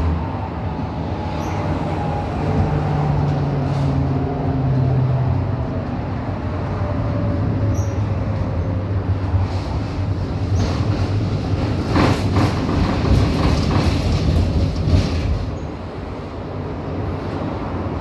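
Tram running, heard from inside the passenger car: a steady rumble with an electric whine that falls in pitch over the first few seconds. About twelve to fifteen seconds in, the wheels clack and knock over the rail joints.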